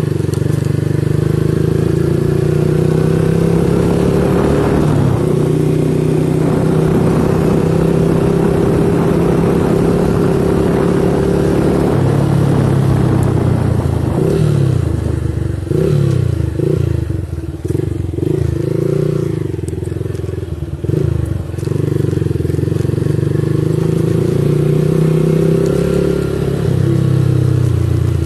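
Small motorcycle engine running while riding, holding a steady pitch for about the first twelve seconds, then falling and rising in pitch several times as the rider eases off and picks up speed, before holding steady again. Wind and road noise run underneath.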